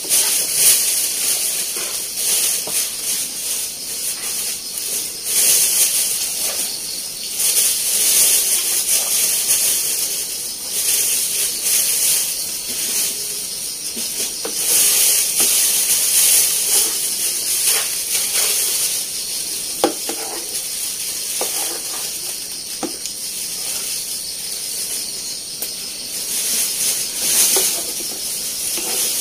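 A pot of water heating on a wood cooking fire, hissing steadily as it steams and swelling and fading every few seconds, with a few faint crackles and knocks.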